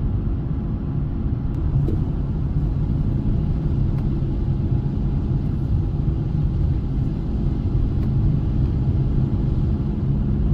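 Fiat Doblo van's engine and tyre noise heard from inside the cab while driving: a steady low rumble with a faint constant hum.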